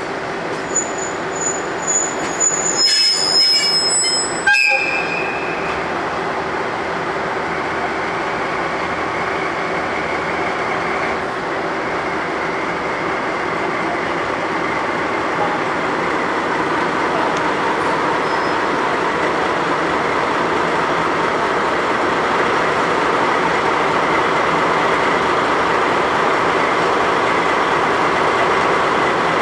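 JR Freight DD51 diesel-hydraulic locomotive with its twin diesel engines running. There are high wheel squeals and metallic knocks in the first few seconds, with a sharp clank about four and a half seconds in, then a steady engine run.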